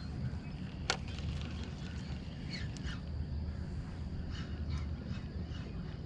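Faint, short animal calls heard a few times over a steady low rumble, with one sharp click about a second in.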